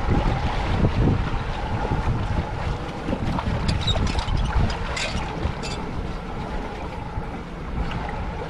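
Wind buffeting the microphone over the steady hum of a boat motor idling, as the boat is held with its bow against a fast current. A few light clicks come around the middle.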